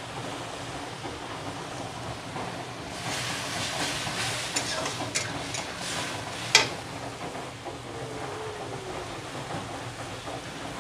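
Steel spatula stirring and scraping frying onions, tomatoes and spice paste in a steel kadai, over a steady low sizzle. About three seconds in, the stirring picks up into a run of scrapes and metal clinks. The loudest is a sharp clack of spatula on pan about six and a half seconds in.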